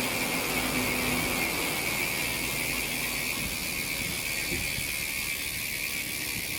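Speedone Torpedo bicycle hub freewheeling as the wheel spins, a steady fast buzz of ratchet clicks. It is loud after some 300 km of riding, which the owner puts down to the fresh grease having worn in.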